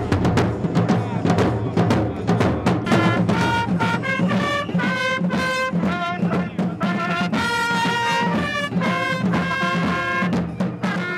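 Drums beating a steady march rhythm, joined about three seconds in by trumpets playing a fanfare melody: the drum-and-trumpet band accompanying a flag-waving display.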